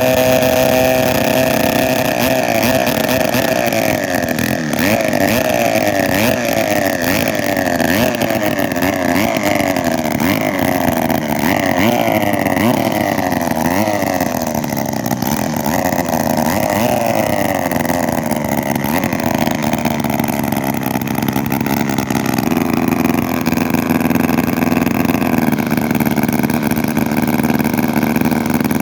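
1943 Mercury twin-cylinder 245cc two-man chainsaw engine running loud on a cold start, its speed rising and falling over and over as it warms up, then settling to a steadier, slower run for the last several seconds.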